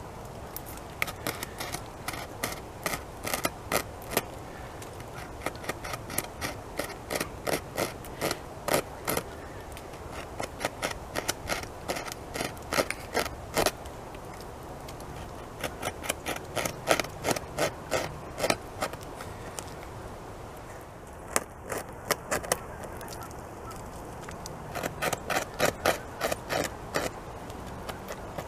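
A beaver gnawing wood off a fallen tree trunk with its incisors: crisp scraping bites, several a second, in runs with short pauses between them.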